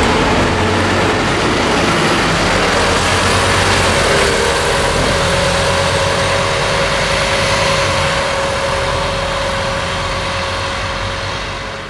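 A double-decker guided bus running along the concrete busway track: engine and tyre noise, with a steady whine from about four seconds in, growing quieter near the end as the bus moves away.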